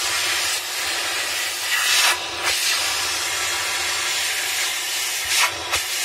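Vacuum cleaner running, its nozzle held to the holes in a washing machine's wash plate to suck out coins stuck beneath it: a steady rushing hiss of air that swells louder about two seconds in and again near the end.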